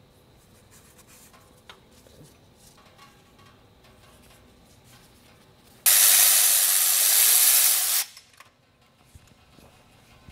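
Faint clicks and rubbing of hand tools on metal. About six seconds in comes a loud, steady hiss lasting about two seconds, which starts and stops abruptly.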